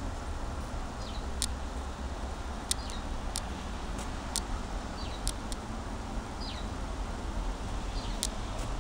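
Steady hiss of falling rain with a few sharp clicks, a low rumble underneath, and a bird calling short high chirps that slide downward, one every second or two.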